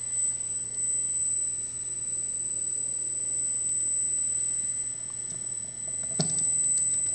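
Pier-Tech roll-off roof gearmotor running steadily as it drives the observatory roof closed: a constant high-pitched whine over a low hum. Two sharp clicks come near the end.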